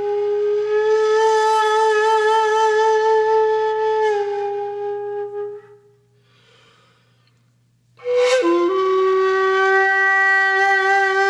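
Music from a flute-like wind instrument playing long held notes with a slight waver. The first note steps down a little before fading out, and after about two seconds of near silence another long note begins with a quick dip in pitch and then holds steady.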